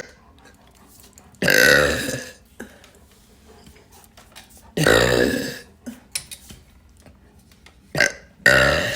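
A woman burping loudly four times: a long burp about a second and a half in, another about five seconds in, then a short one followed at once by a last long one near the end.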